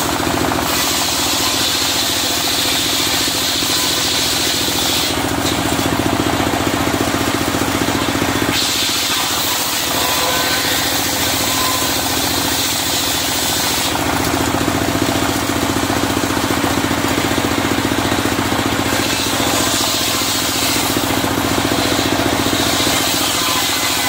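Engine of a portable circular-saw sawmill running steadily with a fast, even pulse, while the saw blade's high hiss rises over it three times for several seconds as red sengon planks are fed through.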